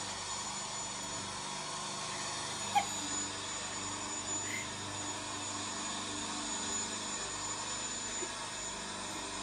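A steady mechanical whir with an even hiss and a low hum. There is a brief faint squeak about three seconds in and another soon after.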